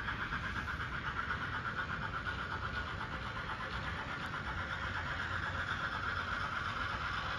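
N scale model train running on its track: a steady whirring hum of the cab forward locomotive's motor and gearing, with the light rattle of wheels on rail.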